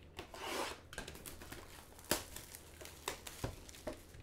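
Shrink-wrapped cardboard boxes of trading cards being slid and handled, the cellophane crinkling briefly at the start, followed by a few sharp knocks as boxes are set down, the loudest about two seconds in.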